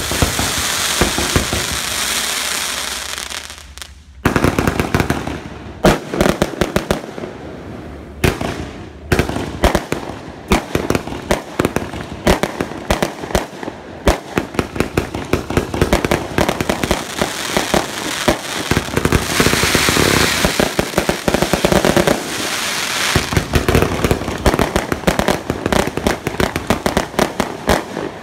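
Fireworks going off: a dense crackling hiss for the first few seconds, then, after a brief dip about four seconds in, a rapid, unbroken run of sharp bangs and crackles.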